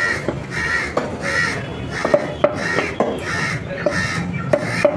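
Harsh bird calls repeat evenly, about once every two-thirds of a second, over a cleaver knocking now and then on a wooden chopping block as chicken is cut up.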